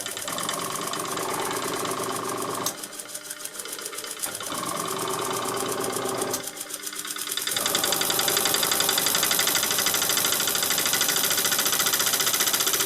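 Bowman PW201 model steam engine running on compressed air, a fast steady mechanical chatter. It drops back twice, then runs louder and faster from about halfway through.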